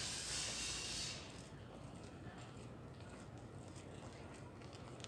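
A brief hiss for about the first second, then faint footsteps of people walking on a paved street, soft ticks at about two or three a second.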